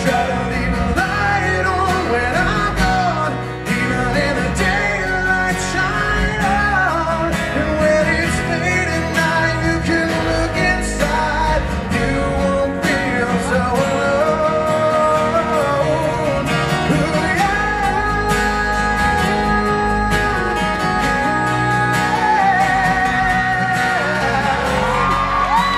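Live pop-rock performance: a male lead singer with a strummed acoustic guitar and full band backing, through a venue's PA system.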